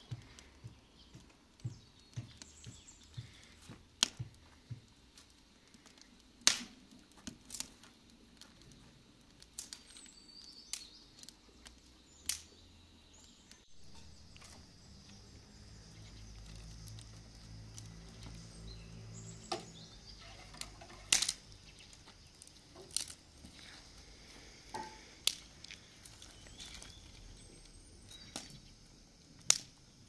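Dry branches being snapped for firewood, by hand and under a foot: sharp cracks at irregular intervals, several to a few seconds apart. A faint low hum runs beneath for a few seconds in the middle.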